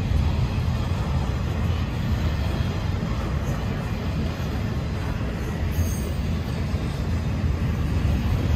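Double-stack intermodal freight train well cars rolling past at close range: a steady, low rumble of steel wheels on the rails.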